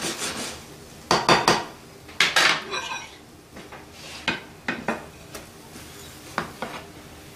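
A spatula scraping and knocking against a frying pan as a potato tortilla that is sticking is worked loose from the bottom, then a plate clinking onto the pan. The sounds come as a series of short clatters, busiest in the first three seconds, then single knocks.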